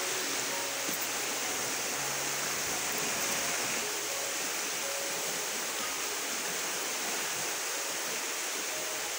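Fast-flowing, swollen river rushing over rapids: a steady, even sound of water.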